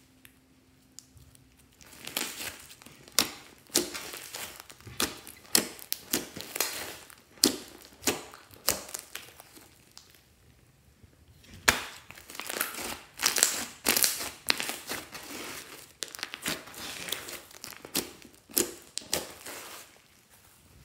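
Hands squishing, stretching and poking thick white slime mixed with small coloured beads, making a string of sharp crackling clicks and squelches. It starts about two seconds in, eases off briefly around ten seconds, then comes thick and fast again.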